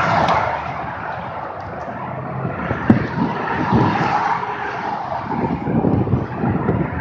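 Motorcycle riding on the road: its engine running under a steady rush of wind noise on the microphone, with one sharp knock about three seconds in.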